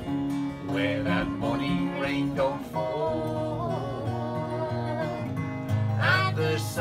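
Steel-string acoustic guitar playing a strummed and picked folk-country accompaniment between sung lines, with a voice singing briefly near the end.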